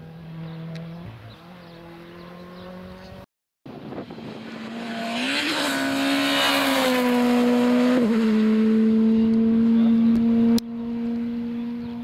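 Rally cars at full throttle on a gravel stage. A more distant engine is heard first. After a brief cut, a car approaches and passes close, its engine held at high revs, with a hiss of gravel and tyres that peaks as it goes by. Its engine pitch steps down a little about eight seconds in, and near the end the sound cuts to a quieter engine.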